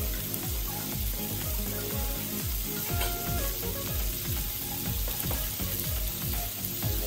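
Sliced mushrooms, red onion and green peppers sizzling in oil and butter in a frying pan. Under it runs background music with a steady low beat.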